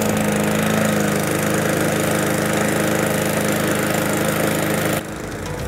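Cobra M41C petrol lawnmower's Cobra DG350-series engine, just pull-started, running steadily at its fixed speed. About five seconds in, the sound cuts off abruptly to something quieter.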